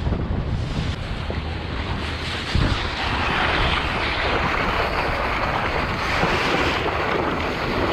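Wind buffeting the microphone over the rush and splash of seawater around a boat, a steady noisy roar that grows louder about three seconds in, with a single thump near the middle.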